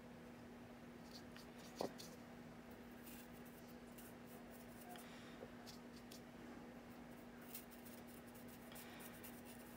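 Very faint scratching of a small paintbrush working a thinned oil wash inside a plastic model jet-exhaust nozzle, over a steady low hum. One sharp click comes about two seconds in.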